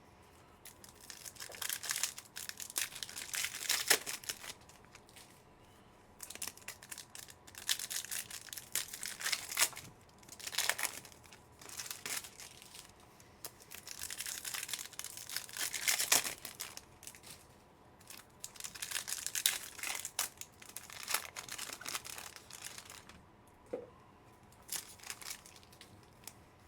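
Foil wrappers of trading-card packs being torn open and crinkled by hand, in about five bouts of ripping and crackling separated by short pauses.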